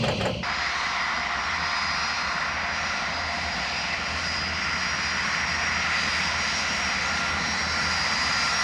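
Aircraft engine running steadily: an even rush with thin high whining tones. It cuts in abruptly about half a second in and holds at one level.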